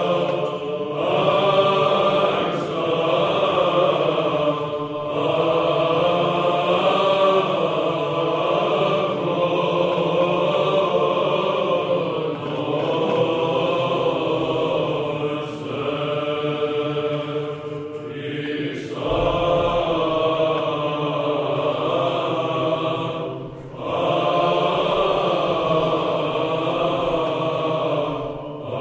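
Orthodox chant: voices singing a slow melody over a held low drone, with short breaks between phrases every few seconds.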